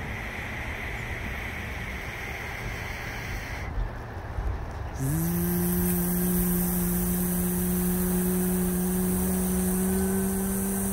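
A steady hiss, then a motor hum starts abruptly about five seconds in. It rises a little in pitch as it comes up to speed and then runs on at an even pitch.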